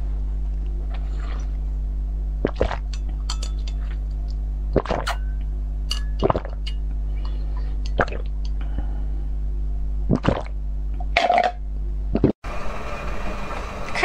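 Close-miked slurping and sucking of a green drink through the glass straw of a novelty straw glass: scattered short wet sips and mouth sounds, with light glass clinks, over a steady electrical hum. About 1.5 s before the end the sound cuts off and a different, noisier background comes in.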